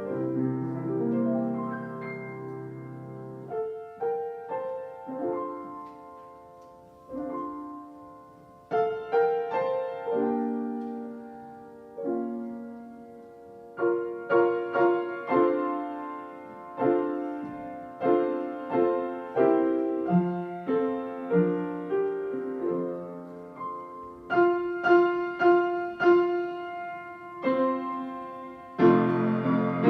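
Solo piano playing a slow, gentle piece: single notes and chords struck and left to ring and fade, sparser in the first half and fuller toward the end.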